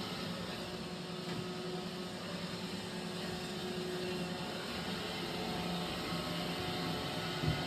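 iRobot Roomba 900-series robot vacuum running after cleaning: a steady motor hum and whir, with a brief knock near the end.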